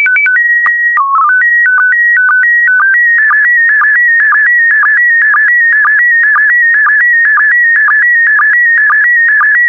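Slow-scan TV signal in PD120 mode starting up. First a run of short beeps that step between pitches, with a longer steady tone just before a lower dip about a second in. From about three seconds in comes the evenly repeating warble of the picture being sent line by line, about two pulses a second.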